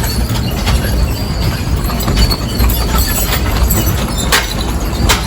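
Steady low rumble of a moving vehicle, with scattered clicks and knocks over it.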